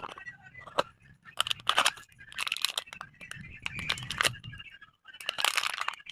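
Packaging being handled and torn open: three short bursts of crinkling and tearing with small clicks in between.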